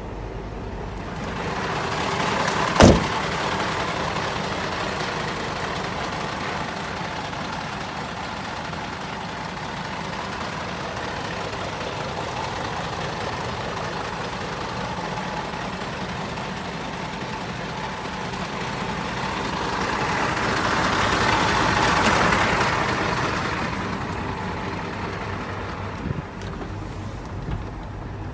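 Hino Ranger truck's diesel engine idling steadily. A single sharp bang comes about three seconds in, and a broad swell of louder noise builds and fades around twenty to twenty-three seconds.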